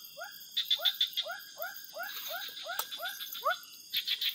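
Frogs calling in a night chorus: a run of short rising notes, about three a second, over a high pulsing trill of insects.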